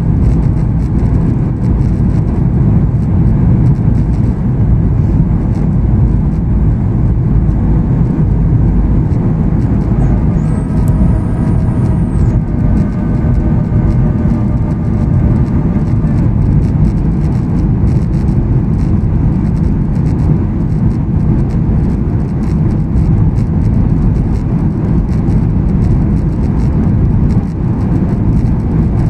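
Steady cabin noise inside a Boeing 737 airliner on its descent: a low rumble of engines and rushing air. A faint steady tone sits over it for a few seconds near the middle.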